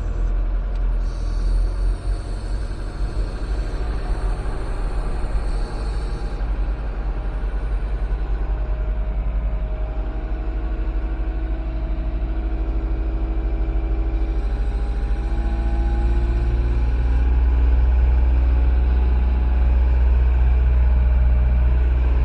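Wheel loader's diesel engine running, heard from inside the cab, with a steady whine in the middle and the engine growing louder over the last few seconds as it works harder.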